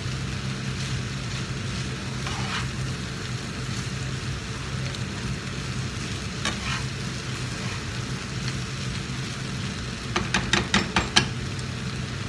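Fried rice with vegetables sizzling in a frying pan while it is stirred and tossed with a spatula and spoon, over a steady low hum. About ten seconds in comes a quick run of six or so sharp clacks of the utensils against the pan, the loudest sounds here.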